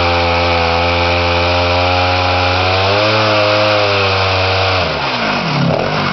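Two-stroke chainsaw engine of a chainsaw mill running at high revs through a cut, its note lifting slightly about three seconds in. About five seconds in, the revs fall away and the engine runs on at a lower, uneven speed.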